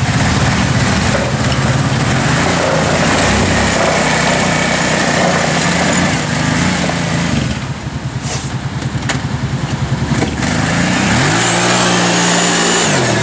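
ATV engine running and revving up and down as the quad drives on rubber snow tracks over pavement, with a rising rev near the end.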